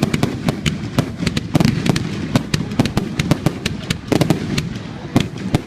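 Fireworks going off: a fast, irregular string of sharp bangs and cracks over a continuous low rumble.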